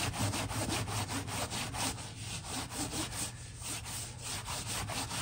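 Paper towel scrubbed briskly back and forth over a tooled leather belt, a steady run of quick rubbing strokes several a second. The antique paste has dried a little too long, so it takes hard rubbing to wipe it off.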